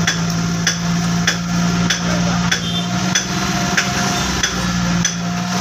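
Suzuki Mehran's three-cylinder carburetted engine idling at the tailpipe after a carburettor service, with a sharp knock about every 0.6 s alongside it, like hammering.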